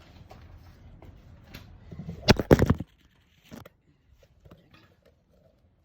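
Clutch plates and parts being handled during a clutch rebuild: a short burst of clattering knocks and rattles about two seconds in, followed by a single click about a second later and a few faint ticks.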